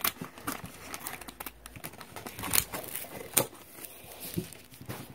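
Scissors snipping open a foil blind bag, then the crinkly foil packet crackling as it is handled, with irregular small crackles and a few sharper ticks.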